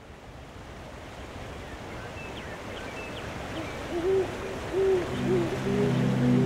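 An owl hoots about four times in a row over a soft, steady rushing ambience that fades in, with faint high chirps before the hoots. Soft sustained music comes in near the end.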